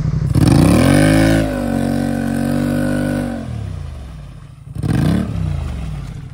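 ATV engine revving hard as the quad drives into a deep mud hole: the revs jump up about half a second in, hold high for a few seconds, then fall away, with one more short rev near the end as the machine bogs down and sinks.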